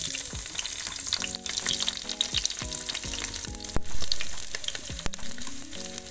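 Sliced onion, green chilli and ginger sizzling in hot coconut oil in a clay pot, just after being dropped in to fry.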